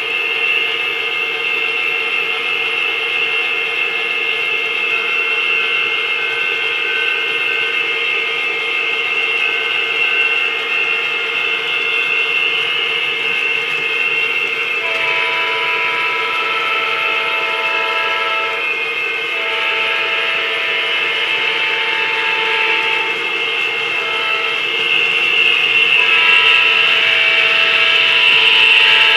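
Horn sound of approaching model diesel locomotives, blown in the grade-crossing pattern from about halfway in: two long blasts, a short one, then a long one. Under it is the steady running sound of the train.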